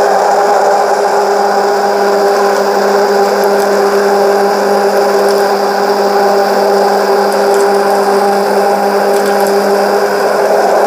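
Electric blender running steadily at one speed with a constant motor hum, whipping a freshly boiled honey sauce. It cuts off abruptly at the very end.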